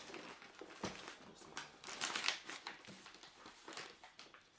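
Brown wrapping paper on a cardboard parcel crinkling and tearing as it is handled and pulled off, in irregular rustles with a few louder crackles.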